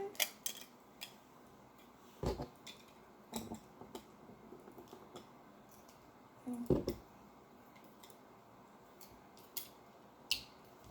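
Plastic Lego pieces being handled and pressed together: scattered sharp little clicks and taps, with two duller knocks, about two seconds in and again near seven seconds.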